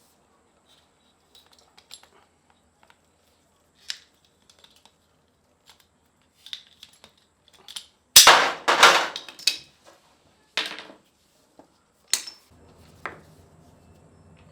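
Clatter and sharp knocks of hard objects striking each other: a few faint clicks, then a burst of loud knocks a little past halfway and two single knocks after it. A low steady hum starts near the end.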